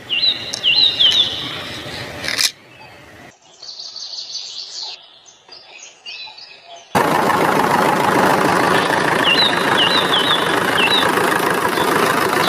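Outdoor ambience of small birds chirping in short rising calls over a steady background hiss. The sound drops to a quieter, patchier stretch in the middle, then returns louder, with the same run of chirps repeated.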